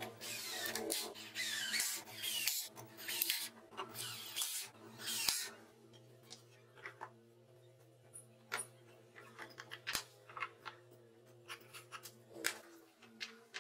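Cordless drill driving screws into a plywood frame in several bursts, its motor whine rising during each run. After about six seconds come scattered light clicks and knocks of plywood parts and a power planer being handled and set in place.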